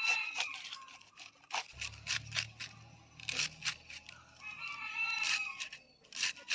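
A small knife slicing through a fresh cabbage head held in the hand, in a quick, uneven run of crisp cutting strokes as it is shredded. A rooster crows in the background at the start and again about five seconds in.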